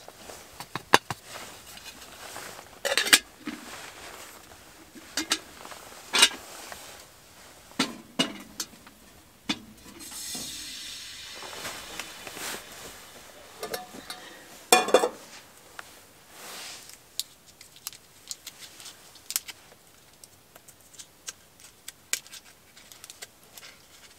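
Metal cookware clinking and knocking on a small steel wood stove (a Winnerwell Nomad): irregular sharp clicks and clanks, with a hiss about ten seconds in.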